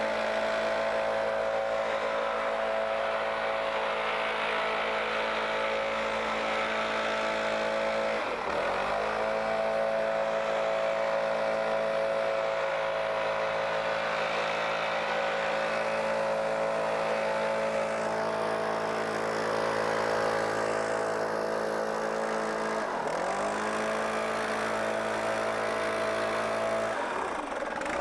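STIHL BR 700 backpack leaf blower's two-stroke engine running at high speed, the blower's fan and airflow going steadily. Its engine speed dips briefly and climbs back three times, about a third of the way in, near the end and just before the end.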